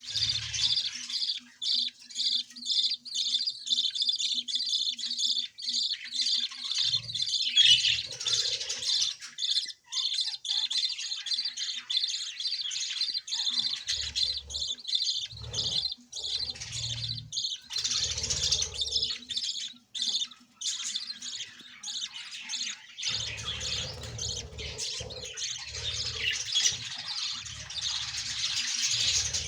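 Budgerigars chattering and chirping continuously, a dense mix of high warbles and squawks, with an intermittent low rumble underneath.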